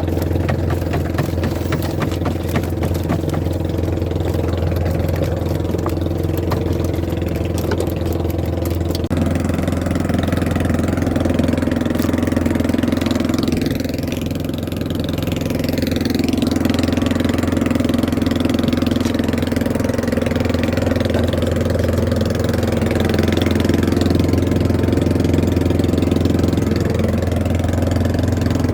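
Small fishing boat's engine running steadily, its tone shifting about nine seconds in and dipping briefly a few seconds later.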